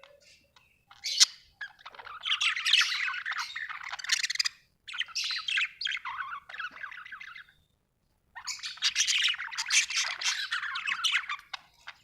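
Budgerigar chirping and warbling: three long runs of rapid, chattering chirps, with short pauses between them.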